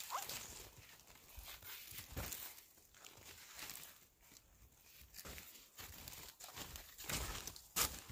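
Snowshoes and boots crunching and shuffling in deep, soft snow in irregular steps, with the loudest crunches near the end.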